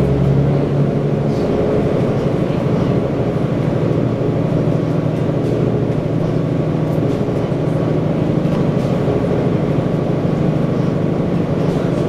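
Orion VII Next Generation transit bus under way, heard from inside the passenger cabin: its Cummins ISL inline-six diesel engine drones steadily over road and body noise. The deepest part of the engine note drops away about half a second in.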